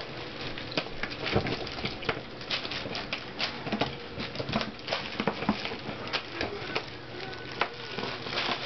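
Heavy plastic sheet crinkling and rustling in a cardboard shoebox as puppies scrabble in it, a dense run of irregular crackles and clicks.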